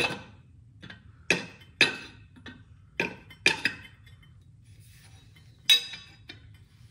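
Metal tools and small steel parts clinking against each other and the concrete floor: a string of sharp, ringing clinks at uneven intervals, the loudest a little before the end.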